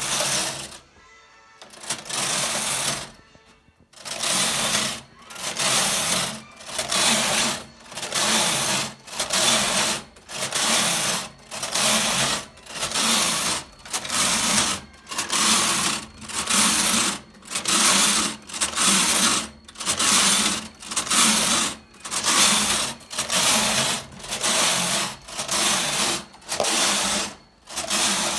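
Carriage of a Brother KH-881 punchcard knitting machine pushed back and forth across the needle bed, knitting a two-colour pattern. Each pass is a rasping whir. Two separate passes with short pauses come first, then a steady back-and-forth of about one pass a second.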